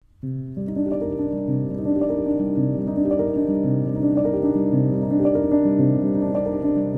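Instrumental music: held, pitched notes in a steady, repeating pattern, the chord changing about every half second. It starts just after the beginning.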